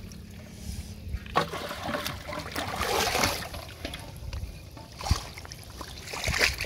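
Shallow water splashing and sloshing as someone wades and works his hands through it, with a few brief louder splashes and a sharp knock.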